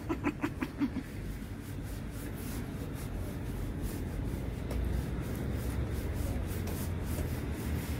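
A few bursts of laughter in the first second, then soft rubbing as a hand strokes a cat's fur, over a steady low rumble.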